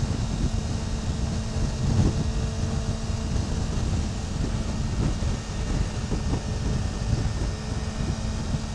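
Wind rushing over the microphone while riding a Yamaha YZF600R sport bike at a steady speed, over the even hum of its inline-four engine.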